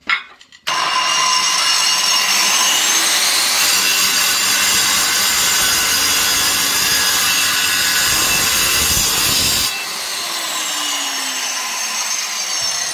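Dexter 2100 W, 230 mm angle grinder switched on, its whine rising as the disc spins up, running steadily at full speed, then switched off near ten seconds with the whine falling as the disc coasts down.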